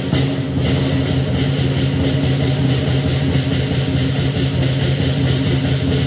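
Lion dance percussion: the big lion drum played in a fast, continuous roll with a sustained low hum, and cymbals clashing about four times a second.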